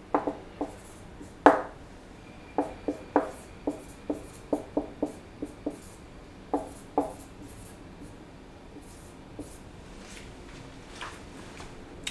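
Whiteboard marker writing on a whiteboard: a run of short taps and scratchy strokes as letters are written, thinning out after about seven seconds.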